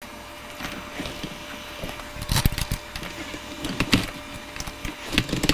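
Irregular knocks and rattles as a dirt bike's spoked rear wheel is handled and lined up in the swingarm for reinstallation, with a few louder clunks.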